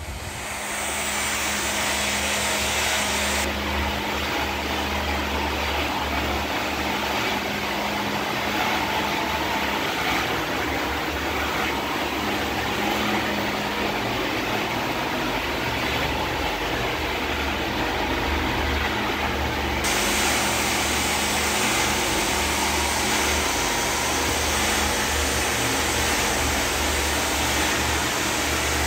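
Electric motor-driven pumping set of a solar drip irrigation system running: a loud, steady, unchanging hum and whir, with no starts or stops.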